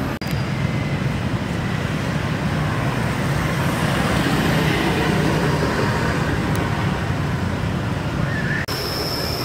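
Steady street traffic noise, a continuous low rumble of passing vehicles. It breaks off near the end and gives way to a different background with a steady high-pitched whine.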